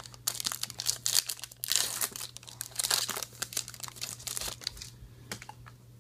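Foil wrapper of a Topps Star Wars trading-card pack torn open and crinkled by hand. The crackling is dense for the first three and a half seconds or so, then thins out.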